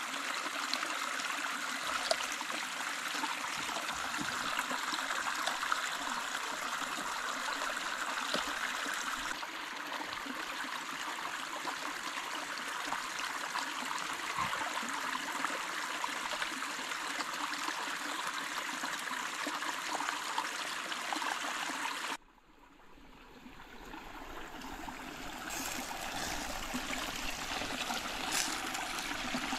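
Shallow stream running over stones: a steady burble and rush of water. About 22 seconds in the sound drops suddenly and swells back up over a few seconds.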